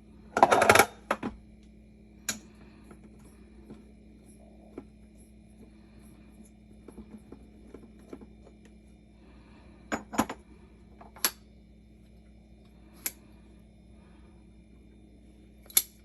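Scattered sharp clicks and light knocks of espresso tools and parts being handled on a counter, with a louder short clatter about half a second in, over a faint steady hum.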